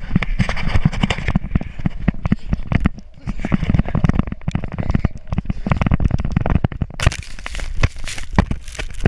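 Rapid footfalls thudding in soft sand as a man runs down a steep dune. About seven seconds in, he falls and tumbles, and sand scrapes and sprays against the GoPro in a dense crackling hiss.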